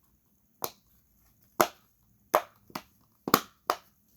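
Silicone bubbles of a simple dimple fidget toy being pushed in, making about six sharp pops spaced irregularly.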